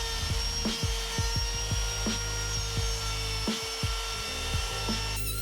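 Wood router running at a steady high pitch as it cuts a shallow recess for a butler hinge around a template, with irregular clicks as the bit takes material. The sound changes abruptly near the end.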